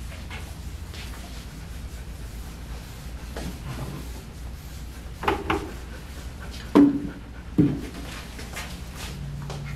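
Furminator deshedding tool being stroked through a shepherd mix's freshly shaved coat, with a steady low hum underneath. A few short, louder sounds stand out between about five and eight seconds in.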